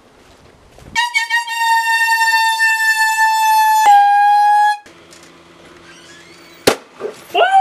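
Party horn noisemaker blown: a few quick toots, then one long steady high honk for about four seconds that dips slightly in pitch before stopping. A single sharp crack follows about a second and a half later.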